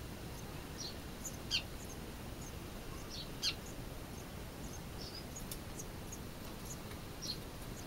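Small birds nesting in the hut chirping: short, high, downward-sliding chirps, one or two at a time, scattered irregularly over a faint steady background hiss.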